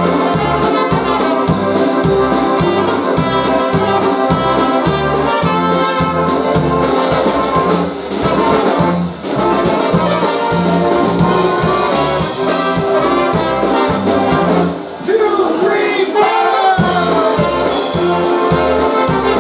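Live polka band playing a polka, with a steady oom-pah bass beat under the melody; the music dips briefly twice.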